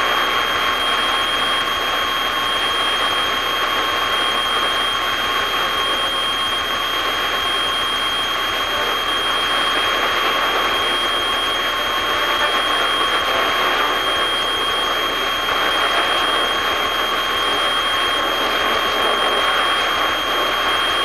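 Steady drone of a light aircraft's engine and cabin noise in cruise, with a steady high-pitched whine running over it.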